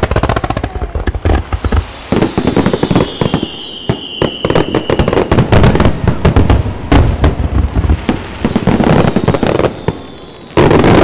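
Fireworks barrage: rapid loud shell bursts and crackles in quick succession, with a whistle gliding down in pitch through the middle. A dense, loud run of bursts comes near the end.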